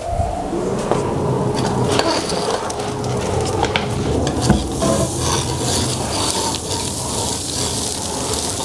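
Dust collector switched on and running steadily, its flexible hose vacuuming wood chips and sawdust off a concrete floor, with a constant hum and a crackling rattle of chips being sucked up.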